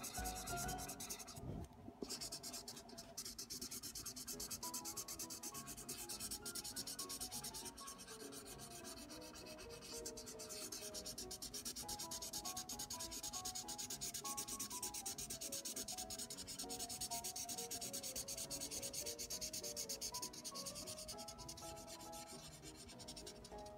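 Tip of a water-filled magic pen scrubbed rapidly back and forth on a paint-with-water paper page, a fast, steady scratching of felt on paper.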